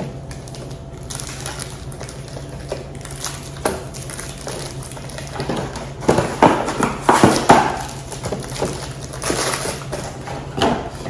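Irregular rustling, knocking and light clattering as packaged snacks and plastic storage containers are handled, with a cluster of louder knocks about six to eight seconds in. A steady low hum runs underneath.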